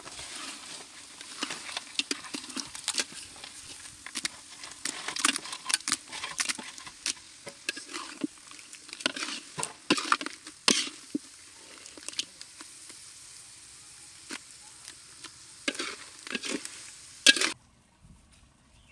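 Fried crabs being stirred into hot masala in an iron kadai: a steady sizzle with repeated scrapes and clatters of a metal ladle against the pan. It cuts off abruptly near the end.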